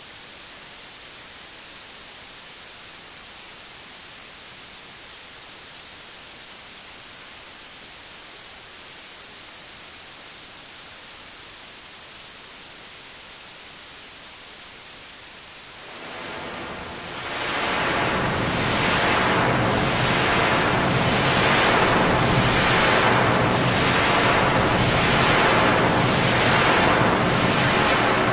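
Heavily processed, noise-like audio made from a person's singing mangled in Audacity. A steady high hiss, then about sixteen seconds in a much louder rushing noise comes in, swelling and fading in a regular pulse roughly every second and a quarter.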